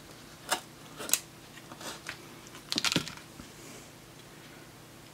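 Scissors cutting a strip of thermal pad in half: a few sharp clicks and snips, then a quick run of snips about three seconds in.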